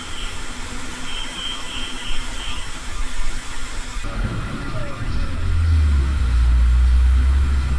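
City street traffic: a steady hiss of passing vehicles, then a heavy engine's low rumble that swells from about halfway through and stays strong to the end.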